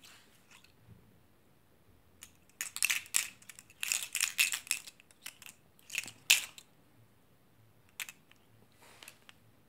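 Panasonic AA zinc-carbon batteries clicking and clattering against each other as they are tipped and shuffled between two hands: a dense run of quick clicks for about four seconds, then a couple of single clicks near the end.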